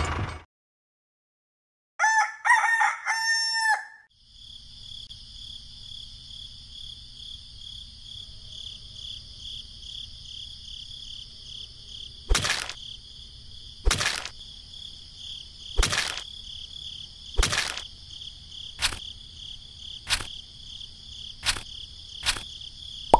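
A rooster crows once, about two seconds in, after a moment of dead silence. A steady high-pitched hum follows, and in the second half sharp clicks come about every one and a half seconds.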